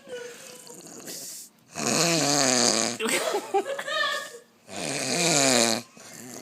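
A person snoring loudly: a softer breath, then two long, loud snores with short pauses between them.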